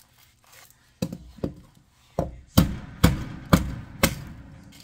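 Sharp knocks as a garlic bulb is struck against a hard kitchen surface to break it open: about seven hits, the last four loudest and roughly half a second apart.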